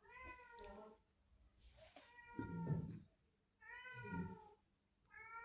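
A domestic cat meowing three times, each meow a short arching call under a second long, fairly faint.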